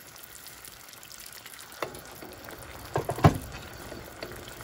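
A metal spoon stirring a thin sauce in a nonstick frying pan, over faint sizzling. The spoon knocks against the pan once a little under two seconds in, then several times just after three seconds, the last knock the loudest.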